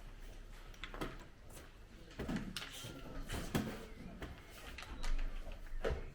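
Scattered light clicks and knocks at irregular intervals.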